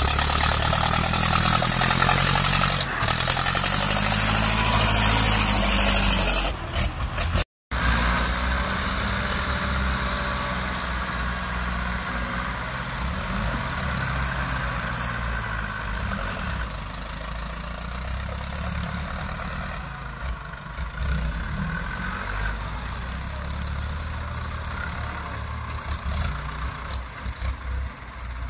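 Diesel engines of Ford farm tractors running under load while pushing soil and dragging disc harrows, engine speed rising and falling in the first few seconds. After a brief cut about seven seconds in, the engines sound quieter and steadier.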